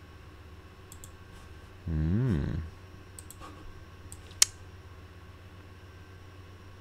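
Scattered computer mouse clicks while picking a colour and drawing a rectangle, the sharpest click about four and a half seconds in. About two seconds in, a man gives a short low 'hmm' that rises and falls in pitch.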